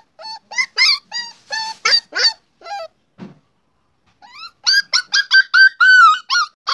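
A small puppy whining and whimpering in a string of short, high-pitched yips. After a pause about three seconds in, a faster run of higher whines follows, with one longer, drawn-out whine near the end.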